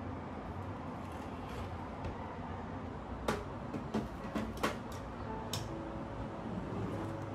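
A handful of light clicks and knocks from things being handled in a kitchen, bunched from about three to five and a half seconds in, over a steady low room hum. Soft music notes come in faintly near the end.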